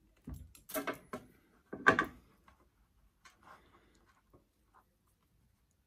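Handling noise as bonsai wire and tools are picked up: a cluster of clattering knocks and scrapes, the loudest about two seconds in, then a few light clicks.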